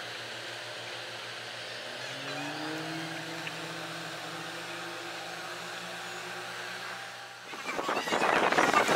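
A train's engine or traction motors humming steadily, then rising in pitch about two seconds in as the train pulls away, in a recording sped up to double speed. Near the end it cuts suddenly to a much louder rushing noise.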